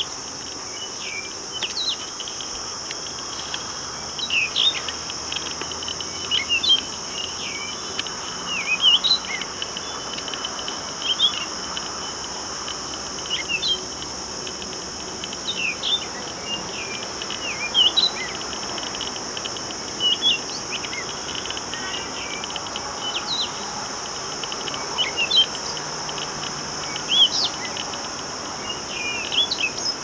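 A steady, high-pitched drone of an insect chorus, with a songbird singing short bursts of quick chirps about every two seconds over it.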